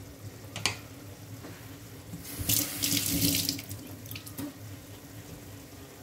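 Kitchen tap run for about a second, water splashing into the sink, with a light knock shortly before and another after.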